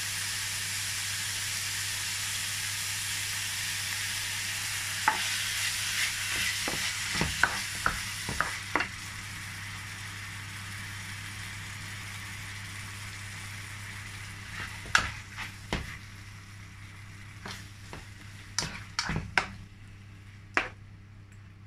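Diced chicken sizzling in a non-stick frying pan as korma sauce is poured in from a jar. The sizzle dies down as the sauce covers the meat, with scattered clicks and knocks as it is stirred in with a plastic spatula.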